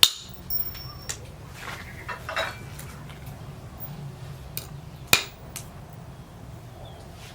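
Sharp metallic clinks and knocks, one loud at the start and another about five seconds in, with a few lighter taps and a short scrape between, over a steady low hum.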